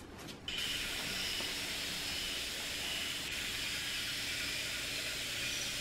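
A steady, even hiss that begins abruptly about half a second in, with faint high thin tones in it.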